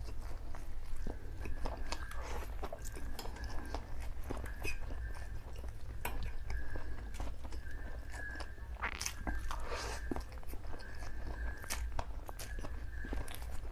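Close-up mouth sounds of a person eating saucy noodles: slurping strands in off a fork and chewing with wet smacks and small clicks, one mouthful after another.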